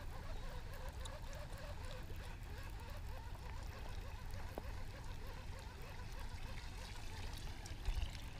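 Faint, steady trickle of water along the aqueduct, low and even throughout.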